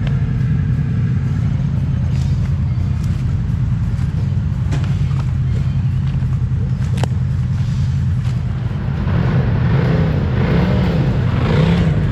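Kawasaki Teryx KRX4 1000 side-by-side engine running steadily under way, with a couple of sharp knocks in the middle. From about nine seconds in it gets louder, its pitch rising and falling as the throttle is worked up and down.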